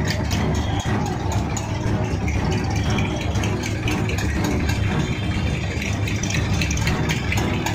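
Several diesel farm tractor engines running at low speed in a slow-moving column, a steady low rumble with frequent rattling clicks.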